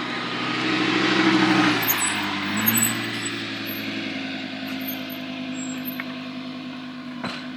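Sports car engine running, swelling about a second in, then dropping in pitch just before two seconds and settling to a steady lower note that slowly fades.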